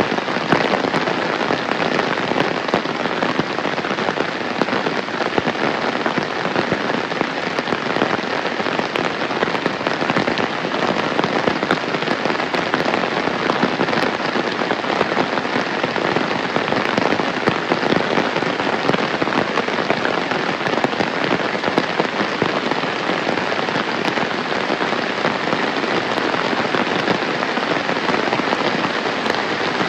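Heavy rain falling steadily, a dense, even patter of countless drops.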